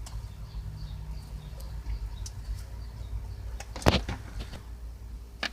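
Car door parts being handled and fitted: a few light clicks and one sharp knock about four seconds in, over a steady low rumble.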